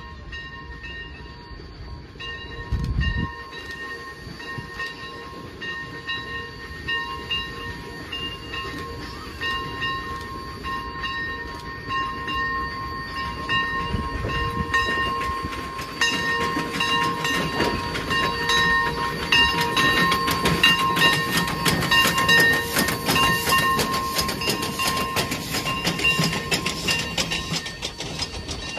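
1915 Heisler No. 3, a wood-burning geared steam locomotive, approaching and passing with its train, followed by wooden narrow-gauge passenger cars rolling by with a rapid clicking of wheels over the rail joints. The sound grows louder from about halfway through as the engine arrives and is loudest as the cars go past. A steady high-pitched ringing tone runs underneath.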